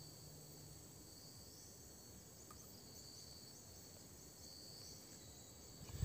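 Faint, steady chirring of insects, high-pitched, with short chirps repeating through it.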